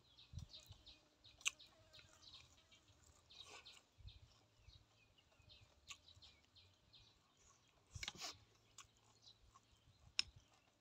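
Faint mouth sounds of someone chewing boiled eggs and fresh leaves, with a few sharp clicks, the loudest about 8 and 10 seconds in.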